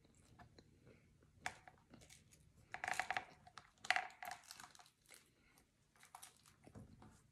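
Food packaging crinkling and rustling in a few short bursts, the loudest about three and four seconds in, with small clicks and taps between.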